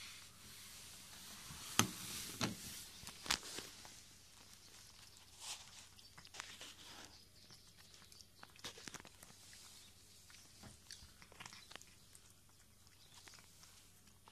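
A cat feeding at its bowl: irregular small clicks and crunches from its mouth, with three louder clicks about two to three seconds in and softer scattered ones after.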